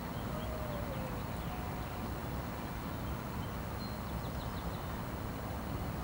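Steady low rumble of distant city traffic, with a few faint high bird chirps, most of them about four seconds in.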